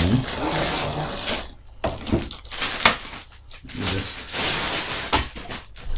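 Handling and rustling of the clear plastic bag around a folded light stand, with a few sharp knocks and clicks, the loudest about three seconds in.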